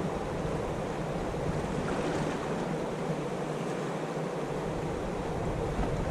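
Steady rush of fast-flowing river water churning below a dam.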